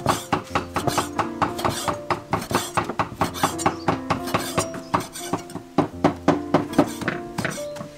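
Cleaver chopping cooked beef tripe into strips on a wooden chopping block: rapid knocks, about four to five a second, with a few short pauses. Soft background music with held notes plays underneath.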